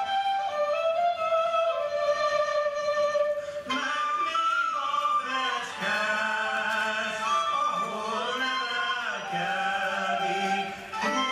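Hungarian folk song: a high voice sings the melody, and a fuller sound with lower voices joins about four seconds in.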